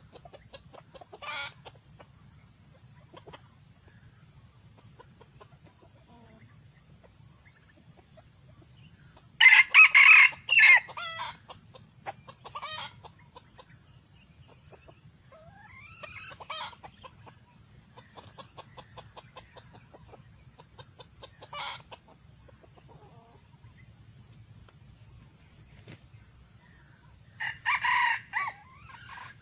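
Red junglefowl crowing during a lure hunt: two loud, close crows, about ten seconds in and again near the end, with fainter crows answering from farther off in between.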